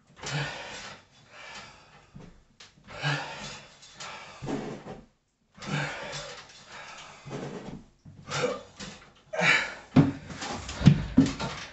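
A man's strained breathing during chin-ups: a forceful, partly voiced exhale with each rep, coming about every three seconds. A few thumps follow near the end.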